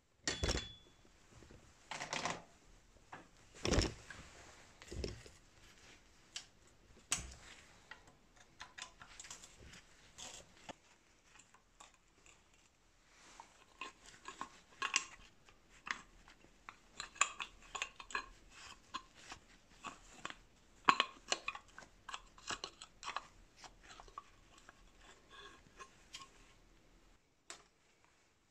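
Irregular clicks, clinks and knocks of metal bicycle parts being handled as a caliper brake is taken off the bike, with louder knocks in the first few seconds and a busy run of clinks later on.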